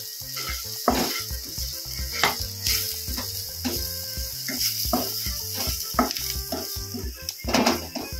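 Wooden spatula scraping and tapping on a non-stick frying pan, roughly two strokes a second, as a dry spice powder is stirred into onions and curry leaves frying in oil over a light sizzle.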